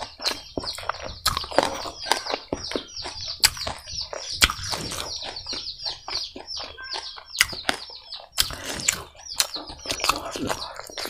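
Wet eating sounds of hand-eating rice and spicy pork curry: sharp mouth smacks and chewing clicks. Behind them, birds chirp in a quick, continuous run of short falling chirps.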